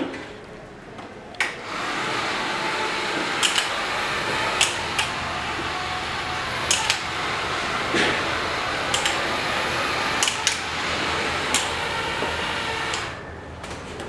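Small electric gear motors and CPU fan of a homemade remote-control sweeping machine running steadily as an even noise, with scattered sharp clicks. It starts about a second and a half in and stops about a second before the end.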